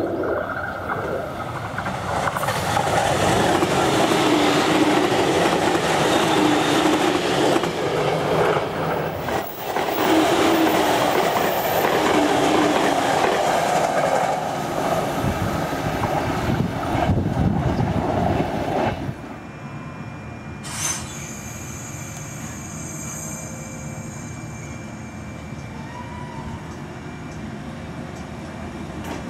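JR Kyushu 813 series electric train passing close by: a loud, steady rumble of wheels on rail with clickety-clack. The noise cuts off suddenly a little past halfway, leaving a quieter steady hum with one sharp click.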